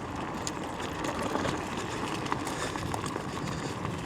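Nami Klima electric scooter riding over a dirt trail: a steady rolling noise of tyres on dirt with scattered small ticks and rattles.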